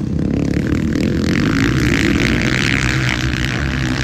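Motocross dirt bike engines running hard as the riders race, loud and steady, with a higher rushing noise swelling about a second in and easing near the end.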